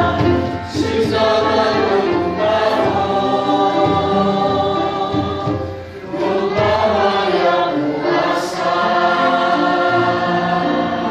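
A church congregation singing a hymn together as a choir, with a brief break between phrases about six seconds in.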